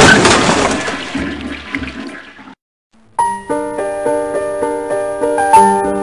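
Sound effect of a car crashing through a wall: a loud noisy burst that fades over about two seconds and cuts off suddenly. After a short silence, piano music begins about three seconds in.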